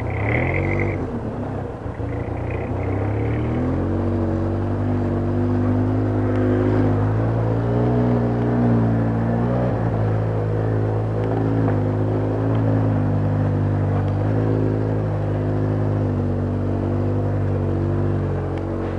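ATV engine running at low speed while crawling over a rocky trail, its pitch rising and falling a little with the throttle.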